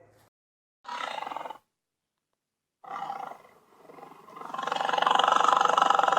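Lion roaring: two short calls about two seconds apart, then a longer, louder roar that swells up from about four seconds in and holds.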